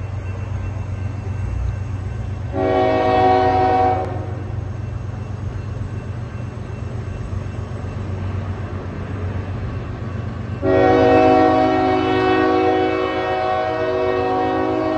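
CSX diesel freight locomotive sounding its multi-chime air horn for a grade crossing: one short blast about three seconds in, then a long blast starting about eleven seconds in, over a steady low rumble from the approaching train.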